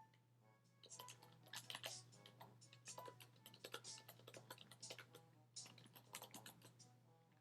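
Faint computer keyboard typing: a quick, uneven run of key clicks starting about a second in and going on for several seconds, with faint music underneath.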